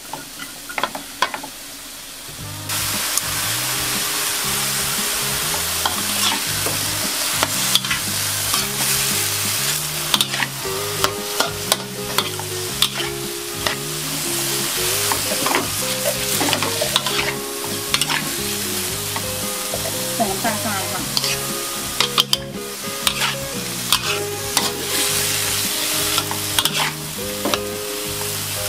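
Bean sprouts, tofu and shiitake sizzling in a hot wok while a metal spatula stirs and tosses them, with frequent clicks and scrapes of the spatula against the pan. The sizzle grows louder about three seconds in.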